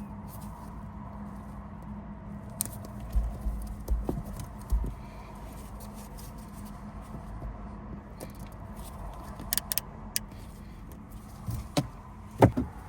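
Scattered light plastic clicks and a few soft thumps as a dash cam and its mount are handled and pressed onto the windshield, over a steady low hum in the car.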